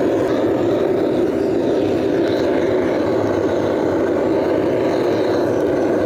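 Handheld gas torch burning steadily, its jet flame lighting firewood in a fire pit.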